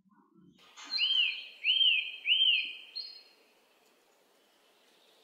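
Three identical bird-like chirps, each a quick rise and fall in pitch, about two thirds of a second apart, starting about a second in, over a fainter steady high tone.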